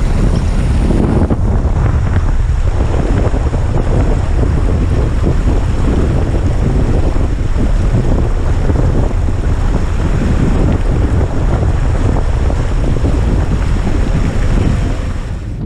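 Floodwater rushing and splashing along the side and wheels of an Audi A2 as it wades through deep water on a flooded road, mixed with heavy wind rumble on the exterior-mounted camera's microphone. The noise is loud and steady, easing only near the end.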